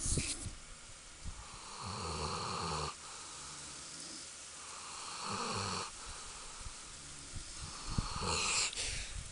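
A sleeping man and dog snoring: three snores about three seconds apart, the first the longest.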